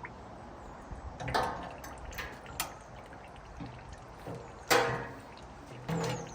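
Clunks and clicks as a quick-release plastic jerry can is unclipped and lifted off a pressure washer frame, with fuel sloshing inside the can. There are about four knocks; the loudest comes near the end.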